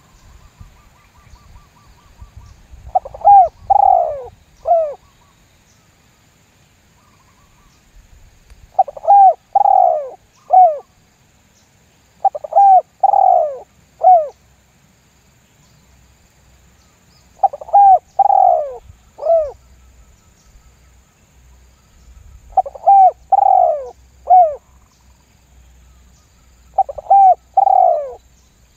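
Spotted dove cooing: six phrases of three falling coos each, repeated every four to five seconds. It is a decoy bird's call, used to lure wild spotted doves.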